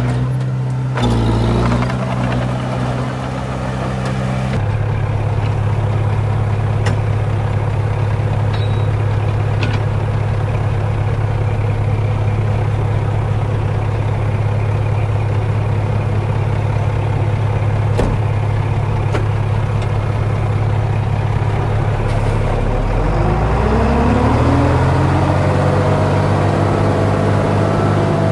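Heavy diesel engine of an earthmoving machine running steadily, then revving up with a rising pitch about three quarters of the way through.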